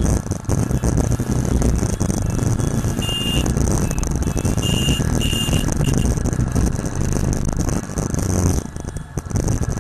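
Motorcycle riding through town traffic: steady engine rumble with rushing wind and road noise. About three seconds in come several short, high-pitched beeps over a few seconds.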